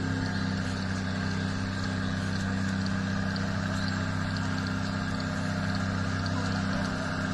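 An engine running steadily at an even speed, a constant low hum that does not change in pitch.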